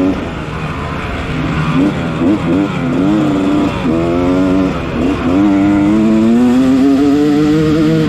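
Yamaha 250 dirt bike engine under race throttle. The revs rise and fall in short bursts, then drop about five seconds in and pull up in one long, steady rise.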